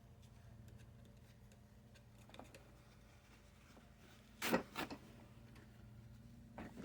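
Paper towel rubbing and scraping on greasy transmission parts: faint scattered rustles, two short loud scrapes about halfway through and a smaller one near the end, over a steady low hum.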